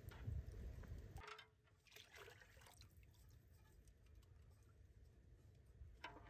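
Faint pouring and dripping of buttermilk from a small metal pot into a large aluminium cooking pot.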